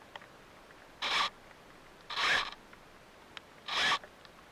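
Footsteps scuffing on rock near the onboard camera's microphone: three short scrapes, about a second or more apart.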